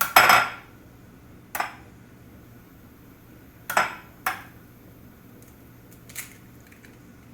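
An egg being cracked on the rim of a bowl: a sharp knock of shell on the bowl at the start, then a few separate clicks and taps as the shell is worked open and emptied.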